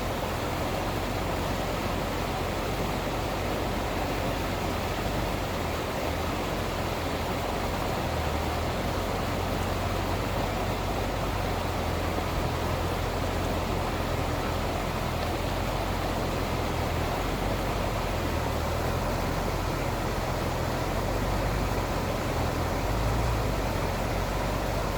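An FJ80 Land Cruiser driving on a bumpy dirt trail: a steady low rumble with the tyre and road noise of the drive.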